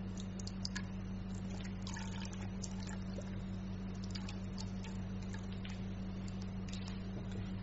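Liquid squirted from a small plastic squeeze bottle into an open abdominal incision, making faint wet clicks and crackles over a steady low hum.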